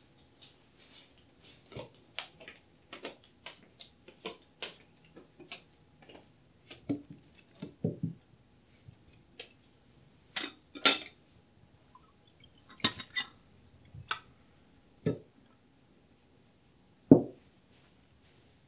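Footsteps coming closer, then crockery and cutlery clinking and knocking on a table as dishes, cups and a coffee pot are set down. The loudest is one heavier knock near the end.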